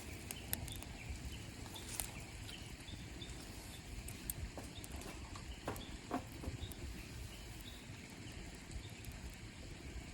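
Steady rushing of a nearby waterfall, with scattered small clicks and knocks over it.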